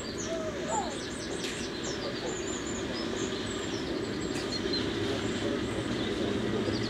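Class 09 diesel shunter's English Electric six-cylinder engine running as it approaches hauling coaches, a steady low drone that grows slightly louder; birds chirp over it.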